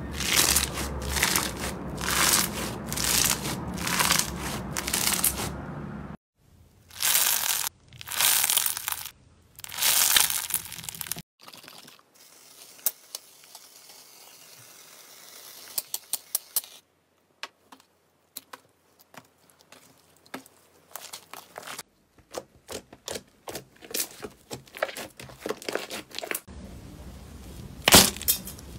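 Slime handled in a run of separate clips. First, foamy bead-filled slime is pressed under the knuckles, giving repeated crackling pops for about six seconds, followed by a few louder crackling squishes. Then foam hisses from a spray can onto clear slime amid small scattered clicks, and near the end a glitter-coated foam slime ball crackles as it is squeezed in the hand.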